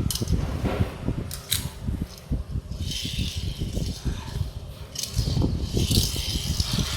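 Hands unboxing a Tomica die-cast toy car: packaging rustling and crinkling, with sharp clicks and light knocks from handling the box and the toy.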